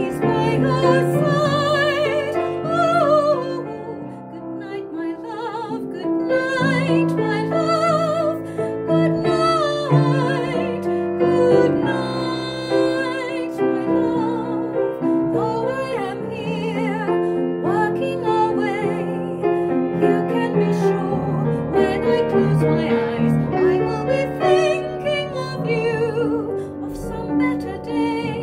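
A woman singing with strong vibrato, accompanied by an upright piano.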